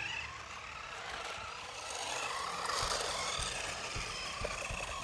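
Small electric motor of a Carrera Mario Kart 1/18-scale RC car whining as it drives, its pitch rising and falling with the throttle.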